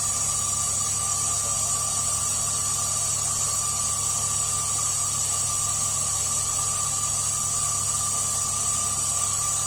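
Toyotomi FF heater's combustion fan running with a steady high whine and hiss over a low hum: the abnormal noise of a faulty combustion fan.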